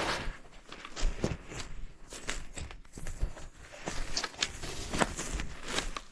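Footsteps tramping through forest undergrowth, with irregular snaps and rustles at each step.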